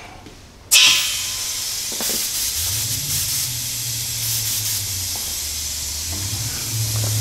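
Airbrush spraying acetone through to flush out matte black DuraCoat: a steady hiss of air and solvent that starts suddenly about a second in. A low hum joins a couple of seconds later.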